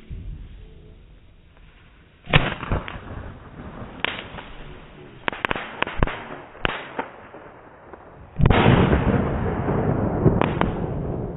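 Fireworks going off: a run of sharp, separate bangs starting a couple of seconds in, then, about eight seconds in, a sudden loud continuous rush with further bangs within it.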